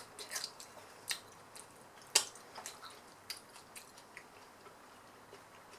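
Close-miked chewing of curry: scattered wet mouth clicks and smacks, irregular and fairly quiet, with one sharper click a little over two seconds in.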